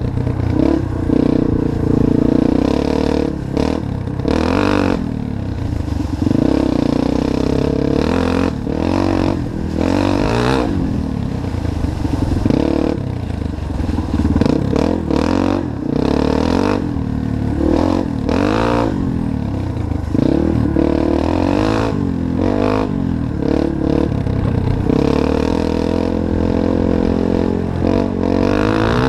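2005 Yamaha TT-R230 dirt bike's single-cylinder four-stroke engine, its exhaust baffle removed, revving up and falling back again and again as the throttle is opened and closed. Occasional short clatters break in.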